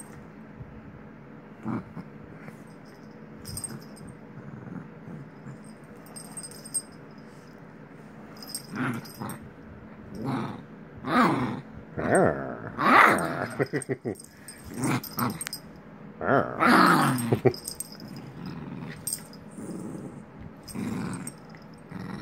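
Maltese puppy growling in rough play while mouthing at a hand. The growls are quieter at first and come in loud bursts about halfway through.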